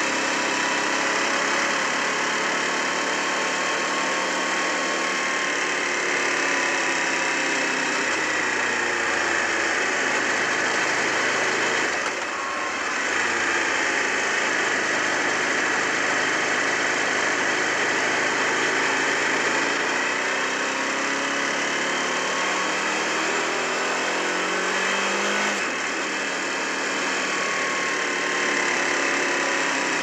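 Aprilia SL1000 Falco's V-twin engine running under way, picked up by a microphone taped to the frame and filtered to bring out a faint high-pitched ticking at about half engine speed. The owner does not know its cause and notices it most off the gas. The engine pitch rises and falls with the throttle, with two short dips, one midway and one near the end.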